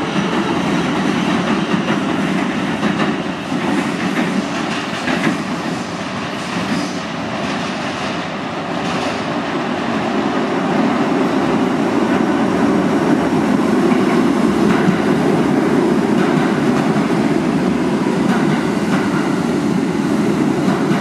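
R68 subway train approaching and pulling into the station on steel rails, its wheels clattering over the track switches and joints, with a little wheel squeal. The noise grows louder from about halfway through as the train comes alongside.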